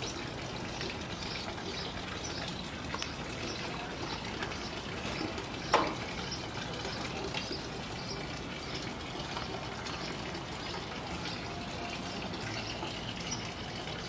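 A steady rushing hiss of background noise, with faint scattered high ticks and one sharp click about six seconds in.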